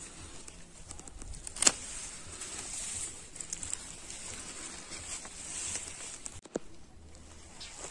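Hand pruning shears snipping off unwanted shoots of a young tree sapling: a sharp snip about two seconds in and a smaller one near the end, with leaves rustling as the stems are handled.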